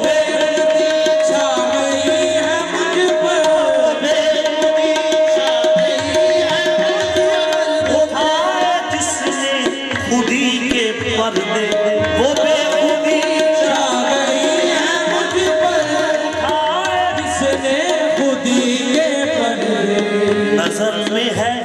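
Qawwali music: harmonium and hand drum keeping a steady rhythm under a sung melody that holds long notes.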